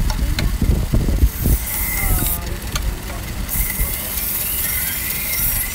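Chef knife ground on the moving abrasive belt of an AMK-75 belt sharpening machine: a hiss of steel on the belt in two passes, the first about a second long and the second about two seconds, over a steady low rumble.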